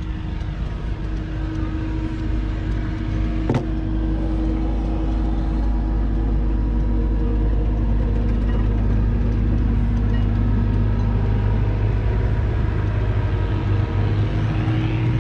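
Steyr 8130 tractor's turbocharged 5.2-litre six-cylinder diesel engine idling steadily, with a single sharp click about three and a half seconds in. Near the end the engine note steps up slightly.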